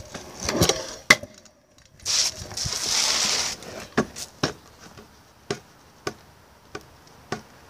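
Stunt scooters rolling and clattering on concrete and a concrete barrier during wall rides. A rough rolling hiss runs for about a second and a half from two seconds in, followed by a string of sharp clacks about half a second to a second apart.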